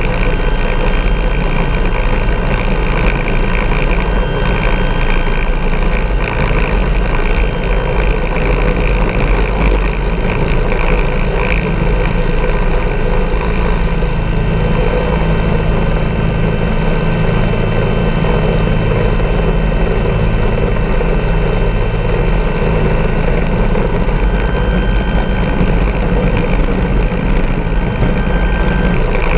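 Bell 412 helicopter in flight, heard from a camera on its tail boom: the twin turboshaft engines and four-blade main rotor make a loud, steady noise, with a constant low rumble under a steady turbine whine.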